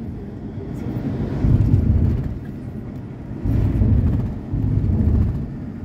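Low road and engine rumble heard from inside a moving minibus, swelling louder and easing off about three times.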